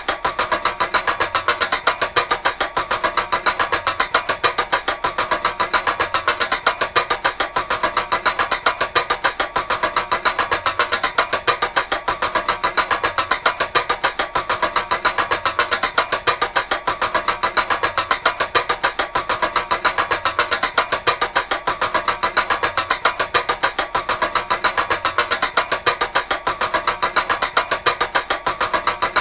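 Metal chain ratchet clicking in a fast, steady run of sharp clicks, about five or six a second.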